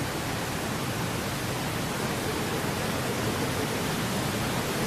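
Steady, even hiss of indoor diving-pool hall ambience, with no distinct event.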